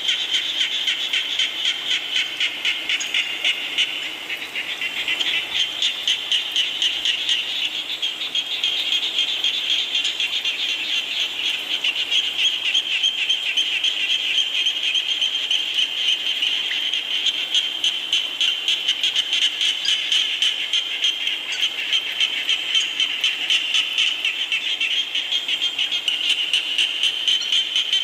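A chorus of frogs calling, dense rapid pulsed calls that swell and fall about twice a second, over a steady hiss of falling rain.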